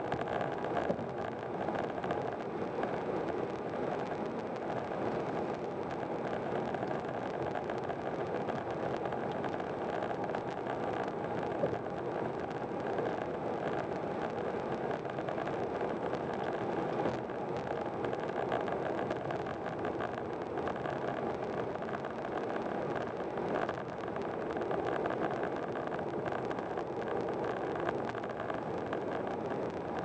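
Steady tyre and engine noise of a car cruising at highway speed, heard from inside the cabin.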